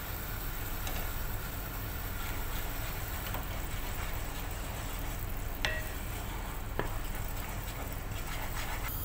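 Wooden spoon stirring a bubbling coconut milk and sugar mixture in a non-stick pan, with a steady sizzle as it simmers down and thickens. Two light clicks near the middle.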